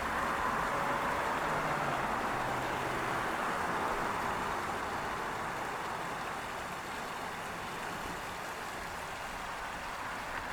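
Small stream waterfall pouring into a pond: a steady rush of falling, splashing water, a little softer in the second half.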